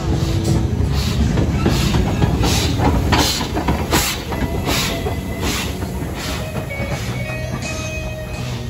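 Steam locomotive working, its exhaust beats chuffing at about one and a half a second over a heavy rumble, easing after about six seconds into a steadier running sound.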